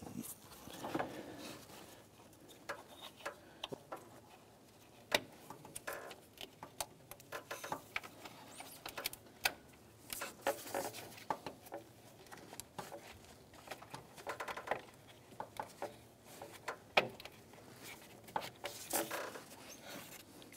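Hands working in a car's engine bay: scattered clicks and taps of plastic parts and light rustling against the corrugated wiring loom and rubber hoses, with a few sharper clicks standing out.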